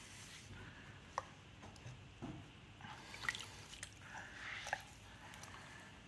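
Wet hands and a rib working soft terra cotta clay on a spinning potter's wheel: quiet squelching of wet clay and slip, with a few sharp clicks.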